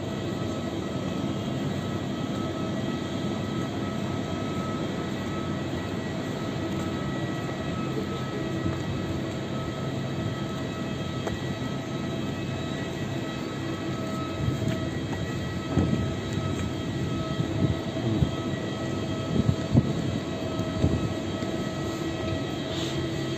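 Steady airport drone with a constant multi-tone whine, typical of distant aircraft engines or ground power units running. From about two-thirds of the way in, a few sharp knocks and clatters stand out above it.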